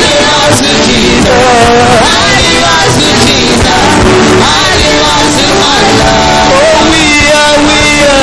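Loud church worship music, with voices singing over instrumental backing.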